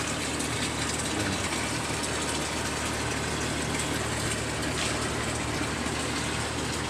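A motor running steadily with a low hum, under a constant hiss.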